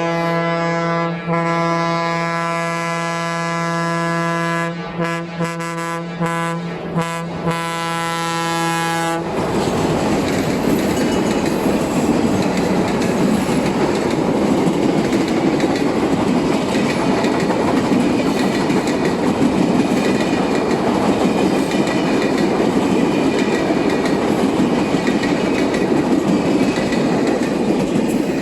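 A long, steady train horn, cut off abruptly about nine seconds in, followed by the loud, continuous rush and rattle of wheels on rail as the train passes at speed.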